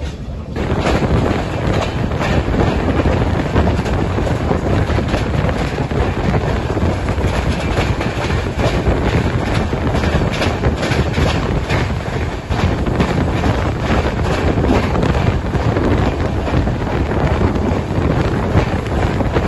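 Wind buffeting the microphone over the running noise of an Indian express passenger train at speed, with frequent clacks of the wheels over rail joints and points.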